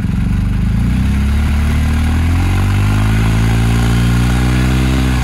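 BMW R 1250 GS boxer-twin engine being revved through a Jekill and Hyde Nomad exhaust: the revs climb smoothly from idle for about three seconds, then are held high.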